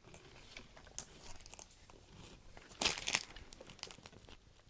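Light crinkling and small clicks of plastic being handled, with a louder crinkle about three seconds in.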